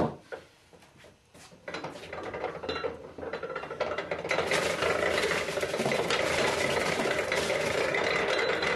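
Apple grinder shredding apples for cider as they are fed into its hopper: a mechanical grinding that starts about two seconds in and builds to a steady, dense grinding by about four seconds.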